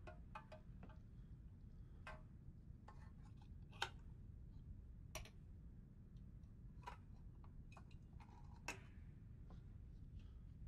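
Near-silent room tone with about five faint, sharp clicks, scattered a second or two apart; the one a little under four seconds in is the loudest.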